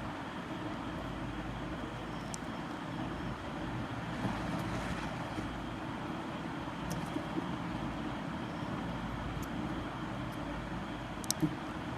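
Steady background noise like distant traffic, with a few faint short clicks scattered through it and a close pair of clicks near the end.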